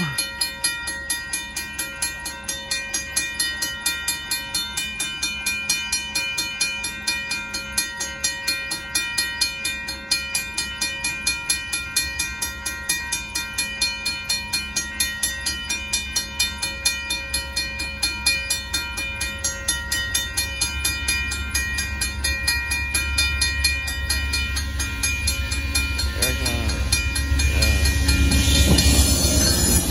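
Railroad crossing bells ringing steadily in an even, repeating strike, while an approaching Amtrak Texas Eagle passenger train adds a low rumble. The rumble builds over the last several seconds and is loudest near the end.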